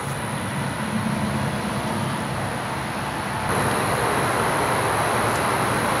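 Steady outdoor night ambience: a low rumble under a constant high-pitched whine. The noise jumps louder abruptly a little past halfway.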